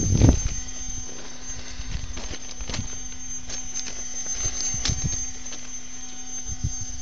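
Irregular crunching steps on railway ballast with knocks from handling the phone, the loudest a thump at the very start, over a steady low hum and a faint high whine.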